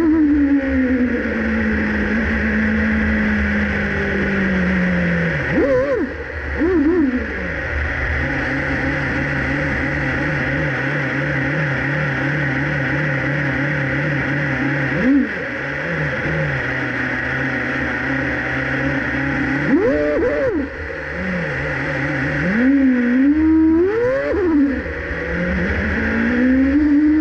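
Formula 1 car's engine heard from a camera on its bodywork, running at low revs as the car crawls along. The revs sink over the first few seconds, then hold low and uneven, broken by short sharp throttle blips about six seconds in, around fifteen seconds and twice near twenty seconds, with revs climbing again toward the end.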